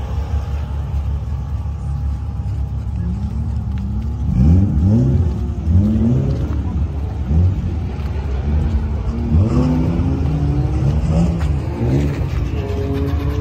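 Drift car's engine revved in repeated short blips, its pitch rising and falling about once a second over a steady low rumble. Near the end it holds high revs briefly.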